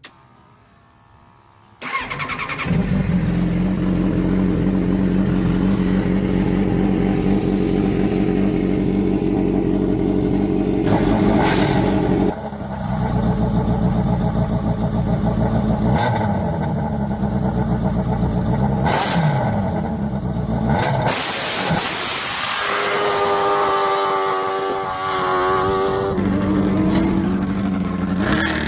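A loud, powerful engine starts up suddenly about two seconds in and runs hard. Its pitch slides down and up again and again as it revs, and the sound changes abruptly a few times.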